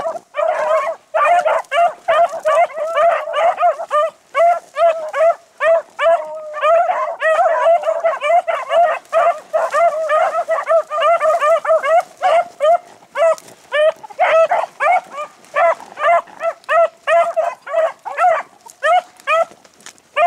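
Several beagles baying in full cry on a rabbit's track: rapid, overlapping high yelps, several a second, with no let-up.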